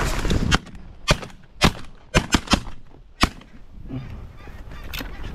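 A rapid string of shotgun shots fired at incoming geese, about seven sharp cracks in three seconds, some in quick pairs, with a weaker one near the end. It opens over a loud rushing noise.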